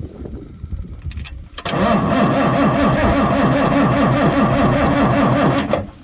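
Starter motor of an old mining loader's engine, jumped across the solenoid terminals with a screwdriver, cranking the engine over with a rhythmic chug for about four seconds. It cuts off suddenly near the end without the engine running on.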